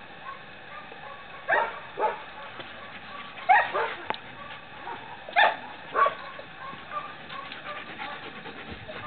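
A dog barking: three pairs of short, loud barks about two seconds apart.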